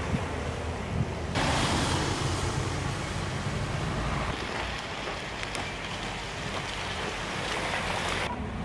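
Street traffic on a slush-covered road: car tyres hissing through wet slush over a low engine rumble. The hiss turns suddenly brighter about a second and a half in.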